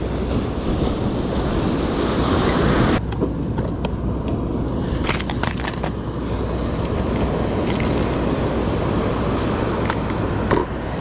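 Surf washing with wind on the microphone, which gives way about three seconds in to a steady wind rumble. Over the rumble come a series of sharp plastic clicks and rattles as a clear plastic tackle box is snapped open and lures are handled.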